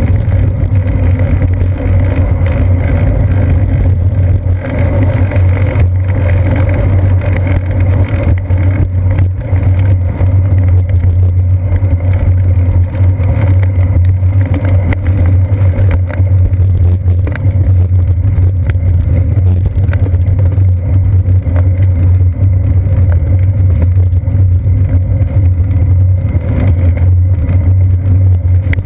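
Steady, loud low rumble of wind and road vibration picked up by a seat-post-mounted GoPro Hero 2 as the bicycle rolls along paved trail, with faint small knocks from bumps in the surface.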